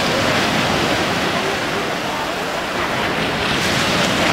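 Steady rushing of water and wind: surf washing over the breakwater and the spray of a water jetpack's downward jets, with wind buffeting the microphone.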